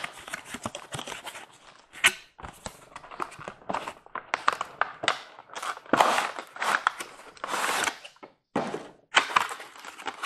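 Cardboard packaging being handled: irregular knocks, scrapes and crinkles as a boxed O-gauge passenger car is opened and slid out in its plastic sleeve.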